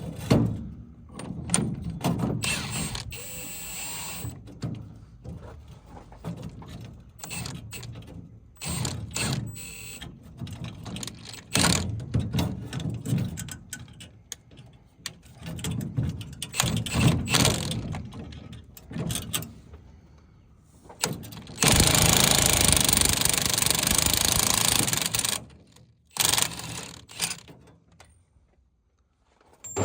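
Metal hand tools working a steering wheel puller on a Willys jeep steering column: repeated clinks, knocks and ratcheting. About two-thirds of the way through there is a loud steady noise lasting roughly four seconds.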